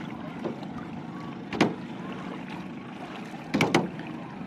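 Kayak being paddled with a double-bladed paddle: a steady low wash of water. Sharp knocks come with the strokes, one about a second and a half in and two in quick succession near the end.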